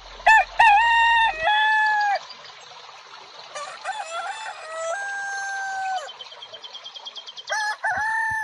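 Roosters crowing: a loud crow in the first two seconds, a fainter one in the middle, and another near the end. Small birds chirp high in the background.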